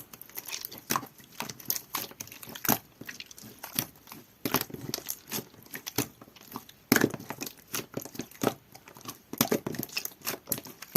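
Clear jelly-textured slime being squished, folded and pulled by hand, giving irregular sticky clicks and pops with softer squelches between.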